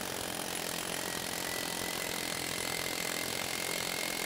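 Harbor Freight Central Pneumatic medium-barrel air hammer running flat out at 90 psi with the trigger held, hammering rapidly and steadily against a steel test fixture. It cuts off abruptly at the very end.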